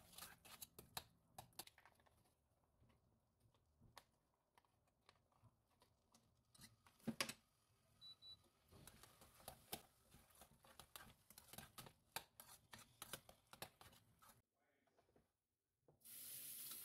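Faint scattered clicks and scrapes of a metal spoon against an enamel pot while mashed potatoes are stirred, with a louder flurry about seven seconds in. Near the end a kitchen tap starts running steadily.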